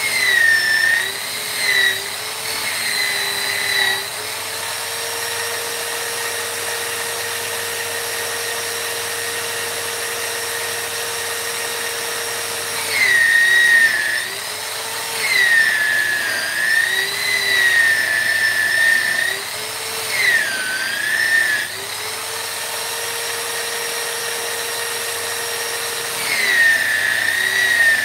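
High-speed electric rotary carving tool whining as it grinds wood. Its pitch holds steady while it runs free and sags and wavers each time the bit is pressed into the wood.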